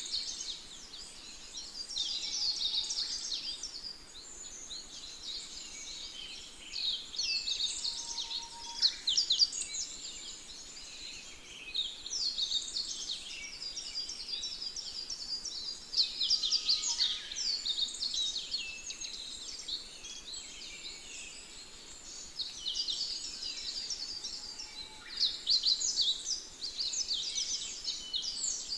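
A chorus of small birds chirping, with many quick, high-pitched calls overlapping and coming in louder clusters every few seconds.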